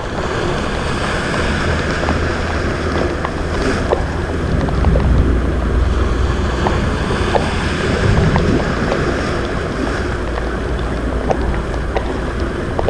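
Rough sea with waves washing in and wind buffeting the microphone in a steady low rumble, with scattered small clicks throughout.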